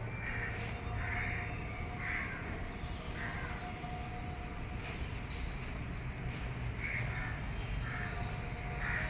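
Crows cawing over a steady low hum: a run of caws about a second apart, a pause midway, then more caws near the end.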